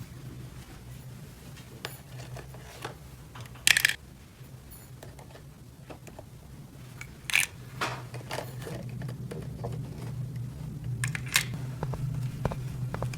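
Small plastic toy pieces clicking and clattering as they are handled, with louder short rattles about 4, 7 and 11 seconds in, over a steady low hum.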